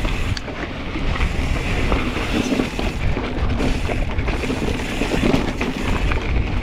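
Wind buffeting the microphone while a Kona Process 134 mountain bike rolls over a rocky dirt trail, with scattered small clicks and rattles from tyres on stones and the bike itself.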